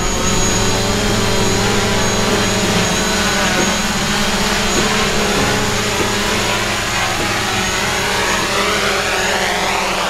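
DJI Mavic Pro quadcopter's propellers whining steadily as it hovers low and lands itself on gravel, an automatic landing triggered by a low battery. Its tone sweeps upward over the last few seconds as it settles to the ground.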